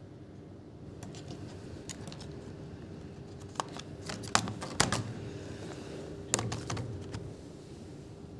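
Keys pressed on a Lenovo V14 G2 laptop keyboard: irregular clicks in a few short clusters with pauses between, the loudest around the middle.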